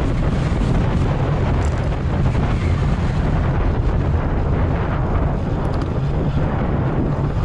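Wind buffeting the microphone of a camera moving at speed with a bicycle racer: a loud, steady, low rumble that does not let up.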